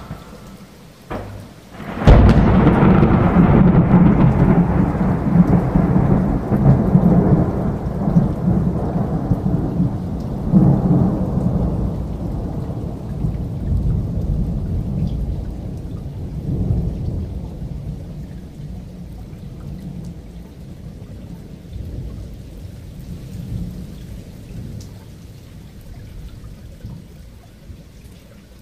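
Thunder: a loud crack about two seconds in, then a long low rumble that swells again around ten seconds in and slowly fades, with rain.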